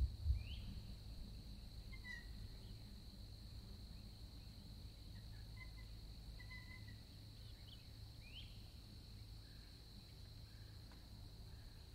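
A steady high insect drone with a few short, faint bird calls scattered through it. A low thump comes right at the start.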